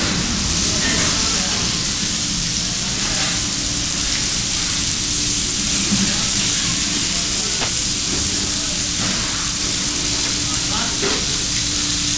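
Steaks sizzling on a hot ridged grill, a steady hiss of fat and juices frying, over a steady low hum.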